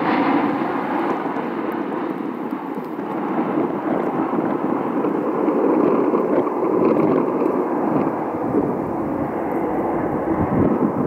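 Boeing 777 airliner's twin jet engines at low approach thrust as it passes on short final and flares over the runway: a steady, even jet noise without clear tones.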